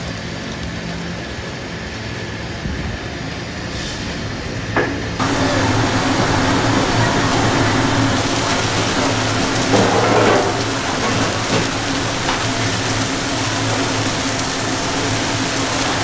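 Steady machine hum with a low drone under a noisy background. It steps up abruptly and gets louder about five seconds in.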